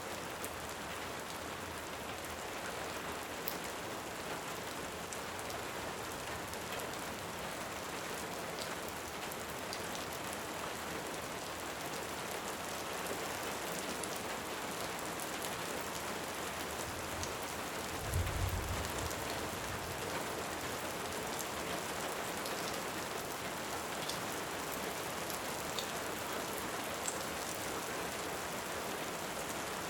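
Steady rain with scattered small crackles from a wood fire, and a brief low rumble of distant thunder a little past the middle.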